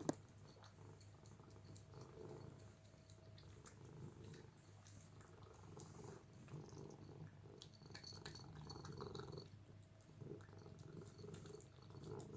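Domestic cat purring faintly in a steady pulsing rumble, with one short knock right at the start.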